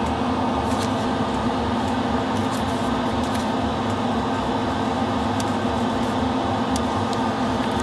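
Steady hum of a running electric motor, with an uneven low throb beneath it and a few faint light clicks.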